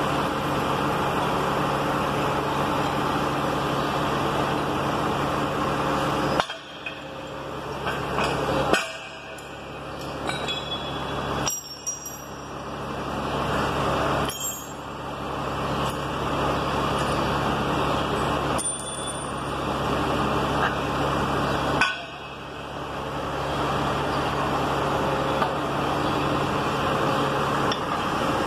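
A steady engine hum, with several stretches where it drops away and small metal clinks and knocks are heard from pins, hook and sheave-block hardware being handled.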